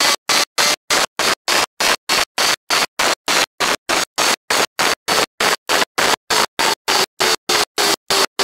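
Wind roar and engine noise of a Kawasaki ZZR1400 riding at speed on track, heard from an onboard camera. The sound is chopped into short bursts about three to four times a second by recording dropouts, with silence between the bursts.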